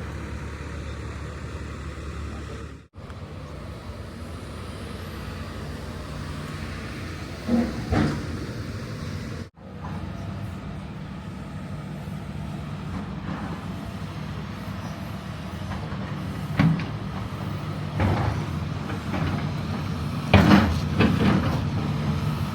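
Heavy vehicle engine running steadily, with several short knocks and clatters over it. The sound cuts out briefly twice.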